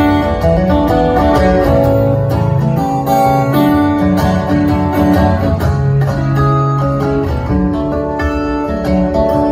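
Solo acoustic guitar played live in an instrumental break, a run of picked notes over strummed chords, amplified through a theatre sound system.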